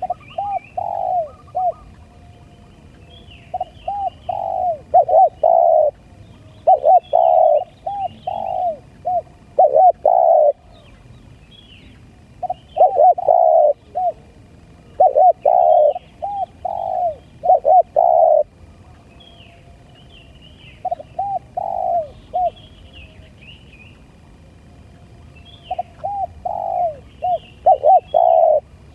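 Spotted dove cooing: phrases of several short coos that end in longer, louder ones, repeated every few seconds. Faint chirps of small birds run higher above.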